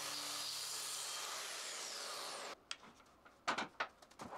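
Festool TS 55 plunge-cut track saw running along its guide rail through a walnut slab tabletop, a steady even noise that cuts off abruptly about two and a half seconds in. A few light knocks and clicks follow as the rail and wood are handled.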